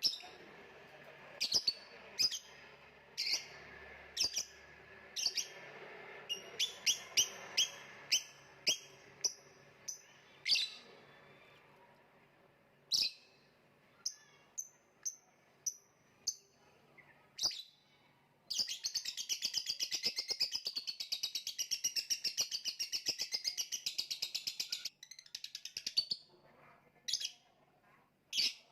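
Lovebird calling: a run of short, sharp chirps, then a long, rapid chattering trill lasting some six seconds in the last third, followed by a few more chirps.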